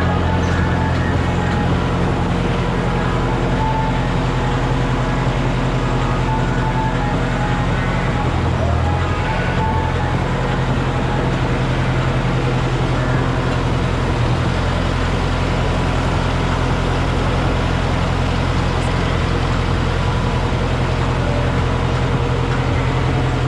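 Tractor engine running steadily, a deep even drone.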